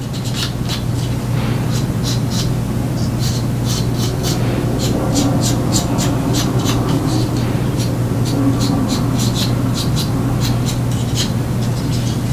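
Fingertip rubbing pastel onto a plastic model-kit part: a quick, irregular run of short, dry scratchy strokes, about three or four a second, over a steady low hum.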